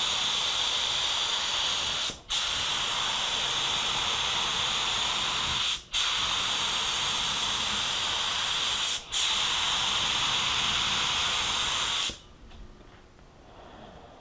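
Black Widow HTE air spray gun spraying clear coat: a steady loud hiss of atomising air and paint, broken three times by brief stops, then cut off about twelve seconds in.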